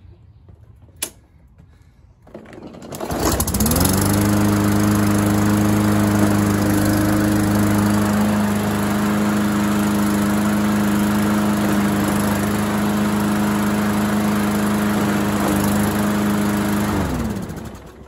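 Briggs & Stratton E-Series single-cylinder engine on a walk-behind mower, pull-started and catching about three seconds in, then running smoothly and steadily at full speed for about 13 seconds before it is shut off and winds down near the end. The engine is running properly again, freshly topped up with oil and fitted with a new air filter.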